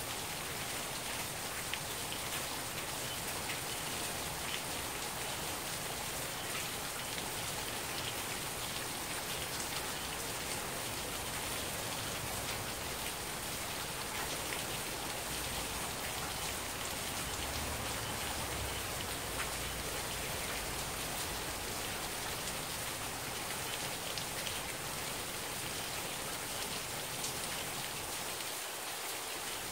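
Heavy thunderstorm rain falling steadily, with individual drops ticking on surfaces near the microphone.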